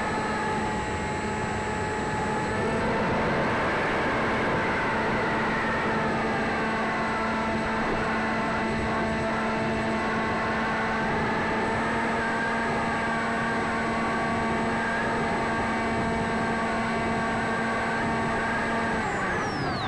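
Electric pusher motor of a Sky Surfer RC glider running at steady throttle with a steady whine over rushing airflow, heard through a camera mounted on the plane. Near the end the motor is cut and its whine falls quickly in pitch as it spins down.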